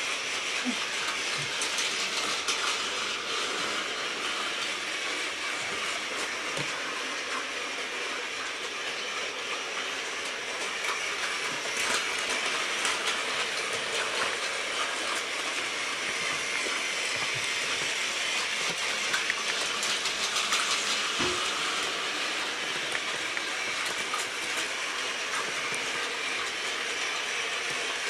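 Battery-powered Plarail toy trains running on plastic track: a steady high motor whir with constant fine clicking of the wheels on the track.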